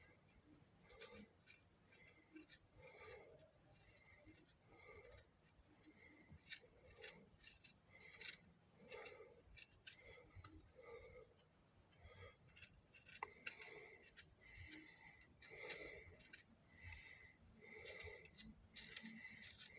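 Faint, repeated scraping strokes, about one a second: the charred, blackened skin being scraped off a fire-roasted guava.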